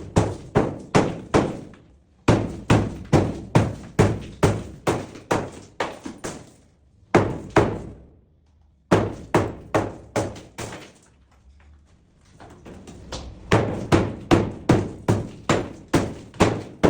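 Repeated hammer blows on zellige tile, at about three strikes a second in runs that fade off, with short pauses about two seconds in, around eight seconds and near twelve seconds.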